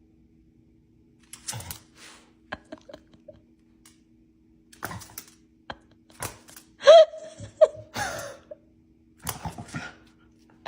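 Scattered light clicks and knocks over a faint steady hum. About seven seconds in comes a short, high-pitched vocal sound with a bending pitch, followed by a couple of smaller ones.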